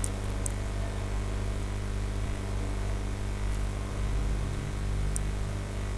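Steady electrical hum with hiss, from the recording chain, with a few faint short ticks near the start and about five seconds in.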